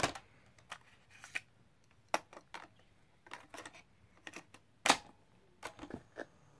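A string of sharp plastic clicks and clacks from a RadioShack portable cassette recorder: the stop/eject key is pressed, the cassette door opens, a cassette tape is fitted in and the door is snapped shut, with the loudest clack about five seconds in.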